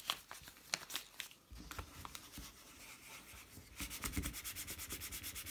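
A sheet of brown paper crinkling as it is handled, then rubbed in quick, even back-and-forth strokes over a graphite-powdered resin 3D-printed part to buff it.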